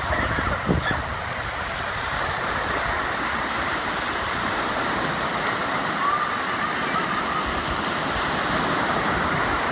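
Ocean surf breaking and washing onto a sandy beach in a steady rush, with a few low gusts of wind on the microphone just after the start.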